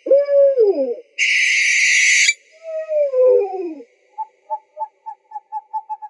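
Owl calls: a wavering call that falls in pitch, then a long harsh hissing screech, then a second falling call, and near the end a fast run of short, repeated hoots.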